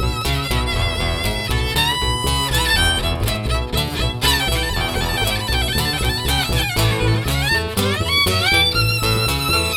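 Live country band playing an instrumental break: a fiddle takes the lead with sliding notes over strummed acoustic guitar and a steady bass line.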